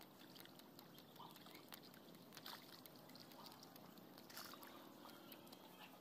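Near silence: faint outdoor room tone with a few small scattered ticks.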